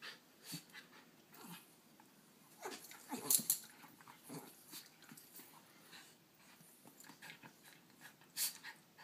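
Two miniature schnauzers, an adult and a puppy, squabbling over a dog bed: short growls and scuffling at irregular moments, the loudest about three and a half seconds in and a sharp one near the end.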